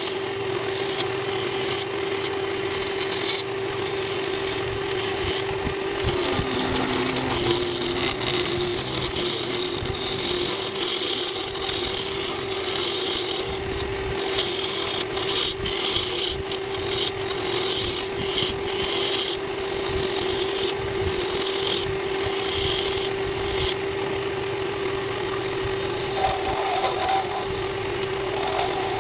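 Woodworking power tool running with a steady hum while a cutting tool scrapes and cuts a pen blank in irregular strokes.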